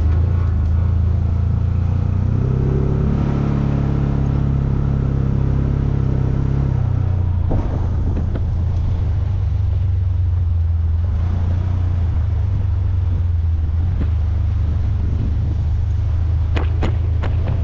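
Vehicle engine and road rumble while driving. The engine note rises and holds from about two seconds in to about seven seconds, then drops back. A few knocks come about seven seconds in and near the end.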